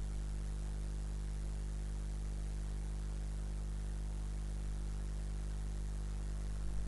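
Steady electrical mains hum with a low buzz and background hiss from the recording setup, unchanging throughout.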